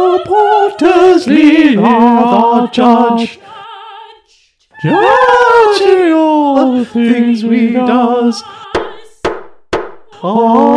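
Unaccompanied sung jingle: voices holding long notes with wide vibrato, breaking off briefly about four seconds in, with a few sharp clicks near the end.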